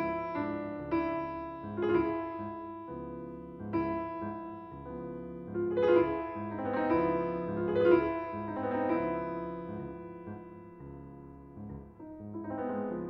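Piano music, with notes and chords struck roughly once a second and fading between strikes.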